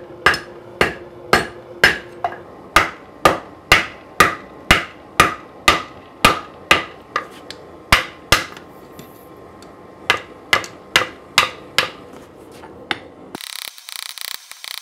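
Hand-hammer blows on a red-hot Damascus knife blank held on a steel anvil, about two strikes a second, each with a faint ring. The hammering pauses for about a second and a half after roughly eight seconds, then resumes briefly. Near the end it stops and a scraping, rasping sound takes over.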